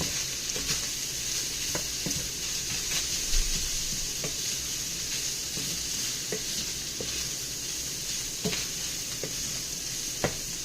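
Ground beef with onion and spices sizzling steadily in a frying pan over turned-down heat, with a few light clicks and scrapes of a utensil stirring it.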